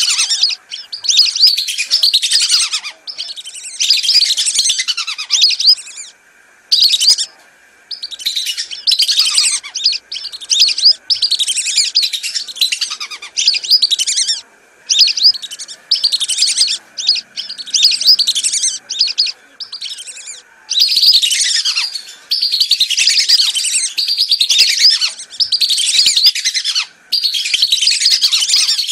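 A flock of whistling ducks (belibis) giving high, shrill whistled calls in quick overlapping bouts with short pauses between them. It is a looped lure-call recording made to draw whistling ducks in.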